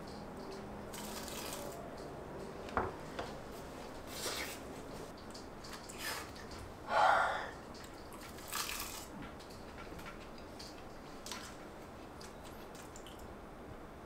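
Quiet eating sounds: a spoon clicking on the dish and chewing of rice wrapped in roasted seaweed, with a sharp click about three seconds in and a few short rustles, the loudest about seven seconds in.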